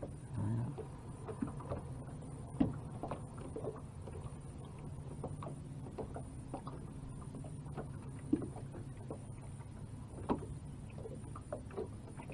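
Quiet sounds aboard a small fishing boat: a low, steady hum under scattered light clicks and taps of fishing gear being handled, with a few sharper knocks.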